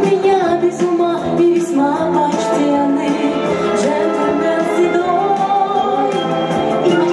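A song with a singing voice over instrumental backing, playing continuously.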